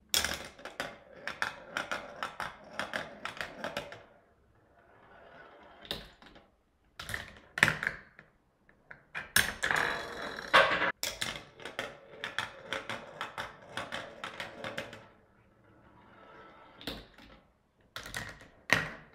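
Plastic parts of a Mouse Trap board-game contraption running: rapid clicking and clattering as the ball and pieces roll, drop and knock through the chutes, stairs and levers. A dense rattle comes about ten seconds in, with quieter rattling between the busier stretches.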